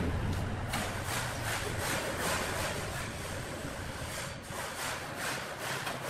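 Wood being sawn: rhythmic rasping strokes, about three a second. A low engine drone fades out over the first couple of seconds.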